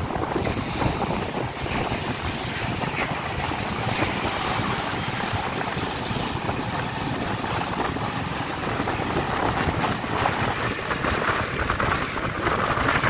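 Steady rush of wind buffeting the microphone with road noise from a moving bike, an even noise without any clear engine note.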